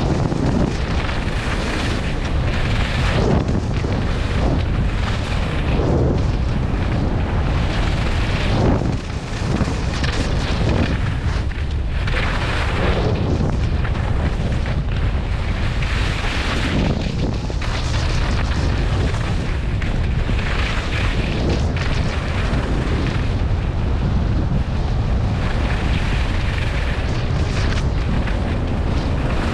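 Heavy wind rumble on the microphone of a skier's camera moving downhill, with the hiss of skis scraping packed snow swelling every few seconds as the skier turns.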